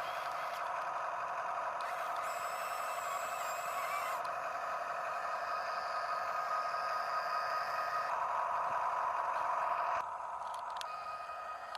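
Huina RC excavator's electric motors and gear trains whining steadily. The pitch and mix shift a few times as different functions run, and the sound drops off somewhat about ten seconds in.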